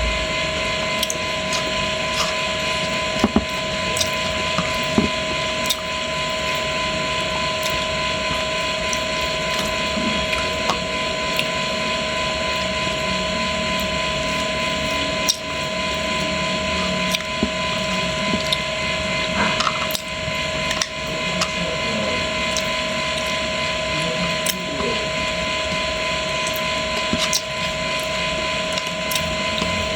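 Fish frying in hot oil: a steady sizzle with many small pops and crackles, over a steady hum.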